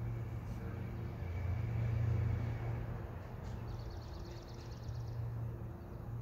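Steady low mechanical hum, with a short, rapid, high-pitched ticking trill about four seconds in.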